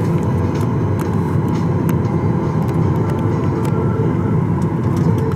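Steady low hum and rush of a parked Boeing 737 MAX 8 cabin, with air-conditioning running at the gate while the engines are shut down.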